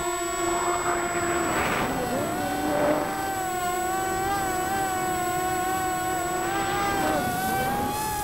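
Electric motors and propellers of a multirotor drone, heard through its onboard camera. They give a steady whine whose pitch shifts with the throttle, dipping briefly about two seconds in and again near the end before climbing back.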